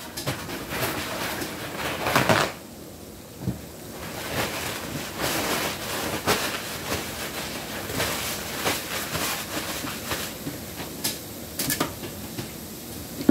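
Paper towel rustling and crinkling as it is handled and shaken open, in stretches, with a few sharp light clicks near the end.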